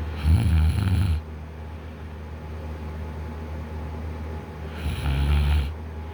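A man snoring: two loud snores about four seconds apart, each a rough rattle lasting about a second.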